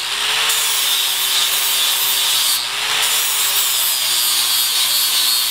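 Angle grinder with a flap disc grinding a bevel into the edge of a steel plate held in a vise: a steady, loud grinding hiss over the motor's whine, which wavers slightly as the disc is pressed into the metal.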